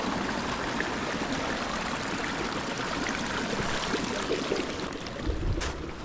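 Small desert creek running over rocks: a steady rushing and trickling of water. Near the end there is a brief low thump with a click.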